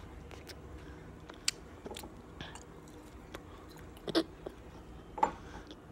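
Slime being worked by hand with water added: scattered small wet clicks and crackles, with a couple of louder squelches near the end.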